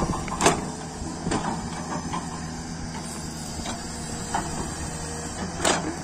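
L&T-Komatsu tracked excavator's diesel engine running steadily as the machine digs and lifts a bucket of soil, with a few sharp knocks from the bucket and boom, the loudest about half a second in and near the end.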